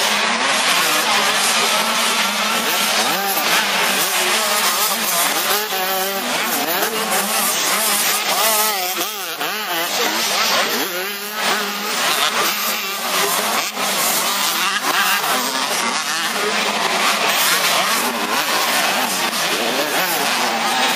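Several 85 cc two-stroke motocross bikes racing, their engines revving up and down, with the pitch rising and falling again and again as more than one bike overlaps.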